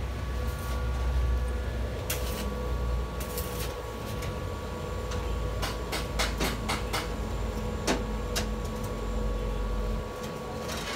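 Metalworking in a bus body workshop: a steady low machine hum with a faint whine, broken by scattered sharp metallic knocks and clicks, most of them in the middle. The hum drops away near the end.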